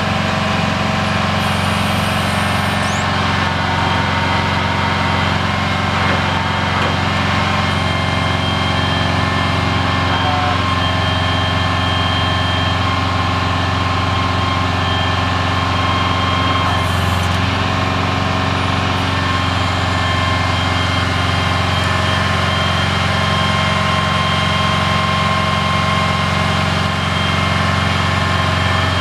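Oshkosh M977 HEMTT's Detroit Diesel 8V92 two-stroke V8 running steadily while it drives the truck's hydraulic crane, with high steady whining tones over the engine note. The engine's note shifts a couple of times as the boom is worked.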